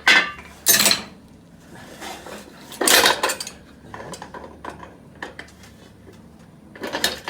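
Metal hand tools clanking and scraping against metal in a few separate clatters: one right at the start, one about a second in, a longer one about three seconds in, and a burst near the end.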